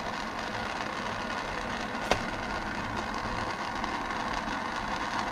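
Small handheld gas torch burning with a steady hiss as a steel knife blade is held in its flame to draw temper colour. A single sharp click about two seconds in.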